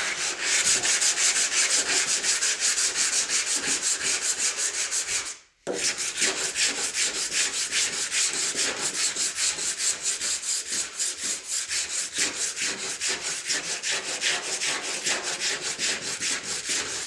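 Body filler on a car body panel being hand-sanded with 80-grit paper on a sanding block: fast back-and-forth rasping strokes, about five a second, with a brief pause about five seconds in.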